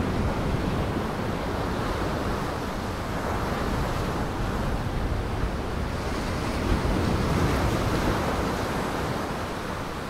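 Breaking surf and wind: a steady, loud rush of storm waves, swelling a little around the middle.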